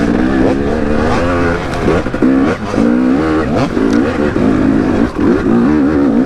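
KTM 250 two-stroke dirt bike engine being ridden, revving up and down repeatedly with short bursts of throttle.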